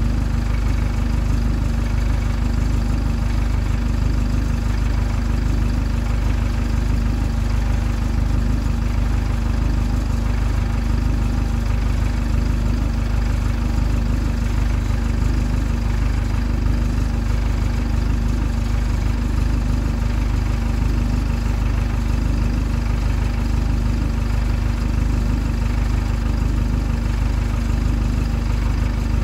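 Single-decker bus's diesel engine idling steadily, a deep rumble with a constant hum that does not change.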